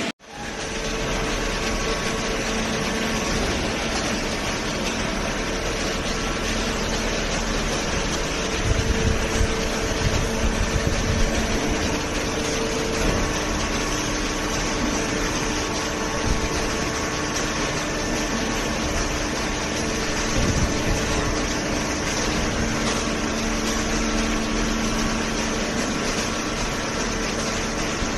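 Hydraulic pump unit of a horizontal cardboard baler running steadily with a faint hum, with a few low knocks about nine to twelve seconds in.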